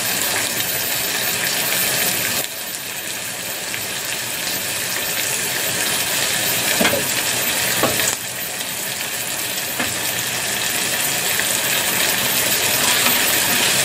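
Sauce with water chestnuts and bamboo shoots sizzling and bubbling in a saucepan on a gas hob, a steady crackling hiss that drops away suddenly twice and builds back up.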